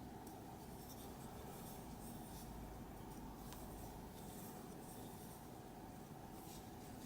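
Faint, irregular rustling and scratching of a crochet hook drawing cotton-blend yarn through loops.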